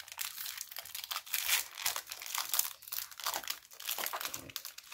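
Foil wrapper of a Pokémon trading card booster pack crinkling as it is torn open by hand, a dense run of small crackles.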